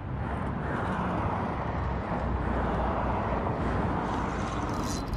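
Steady outdoor rushing noise with a heavy, fluctuating low rumble.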